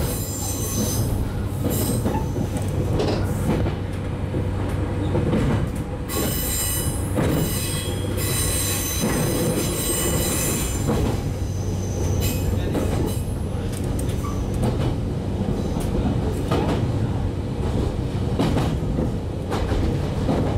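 Running noise inside a 115 series electric train's motor car: a steady low hum and rumble of wheels on rails, with occasional rail-joint clacks. A high-pitched wheel squeal comes in about a second in, and again from about six to eleven seconds in.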